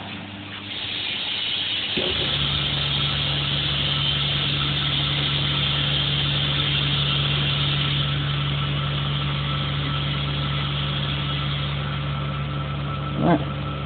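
Vacuum press for laminating film onto cabinet doors, drawing its vacuum. A steady hiss of air being sucked out is joined about two seconds in by the even hum of the vacuum pump, as the film is pulled down over the door panels.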